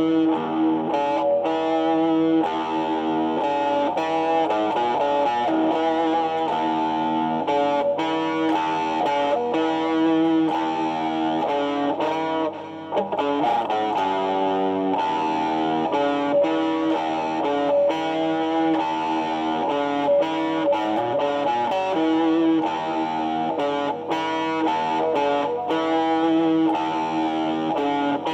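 Stratocaster-style electric guitar played through distortion, with notes sustaining into one another at a steady level.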